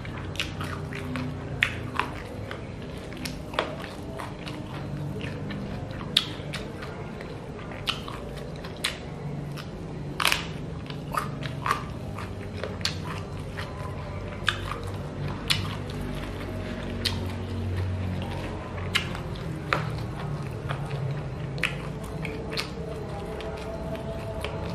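A person chewing and biting into chili-coated chicken feet, with many irregular sharp clicks of mouth and eating sounds over a steady low background.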